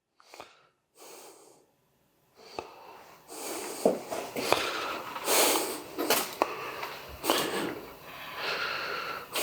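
Rustling with scattered light clicks and taps as fresh herbs are handled and scattered over a plated dish, starting about two and a half seconds in after a near-silent stretch.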